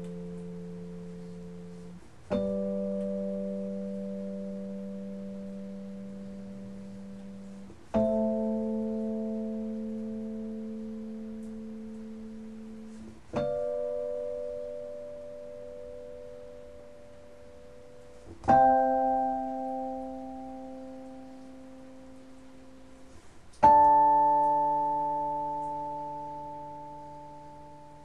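Background music: slow, sustained piano chords, a new chord struck about every five seconds and left to ring and fade.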